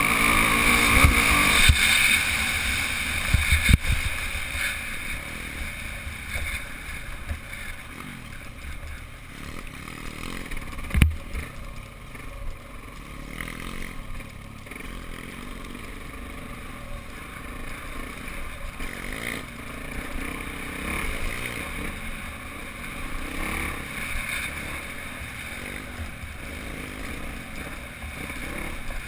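Off-road motorbike running along a dirt trail, heard from an onboard camera with wind noise on the microphone. Sharp knocks come in the first few seconds, and one loud knock about eleven seconds in.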